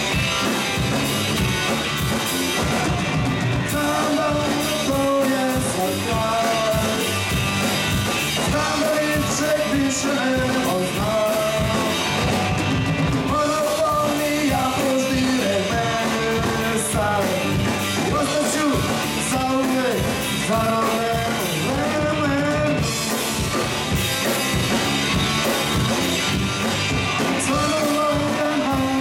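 A rock band playing live with drums and guitar, a singer's voice coming in a few seconds in and carrying on over the band.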